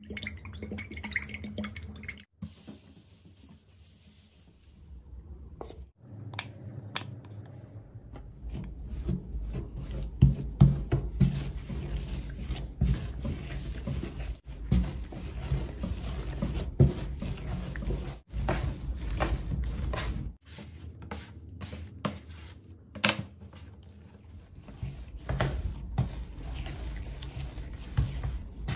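Oil poured from a stainless pourer onto the counter at the start, then hands kneading soft, sticky bread dough on the oiled counter. The dough squishes, with irregular sharp slaps and clicks as it is pushed, folded and pulled off the surface.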